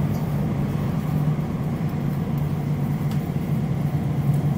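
Class 345 Elizabeth line train running through a tunnel, heard from inside the carriage: a steady rumble with a constant low hum.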